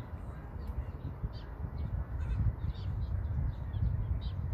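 Birds calling in many short, quick notes over a low, uneven rumble.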